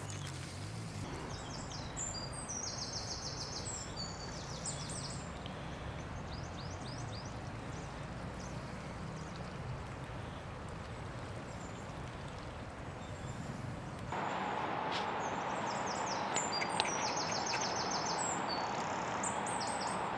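Small birds singing in repeated short chirping phrases over a steady outdoor noise haze, which gets louder about two-thirds of the way through.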